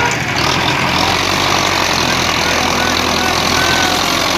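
Diesel farm tractor engine idling steadily.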